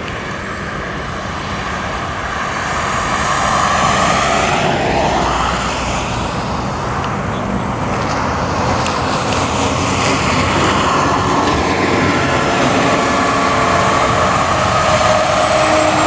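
Diesel locomotive engines running as a train approaches: a steady, loud drone with a high whine, growing louder over the first few seconds.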